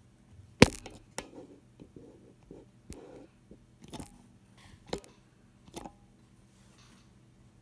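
Plastic Coca-Cola bottle handled and set down on a stone countertop: a sharp knock about half a second in, then plastic crinkling and a few lighter clicks and taps.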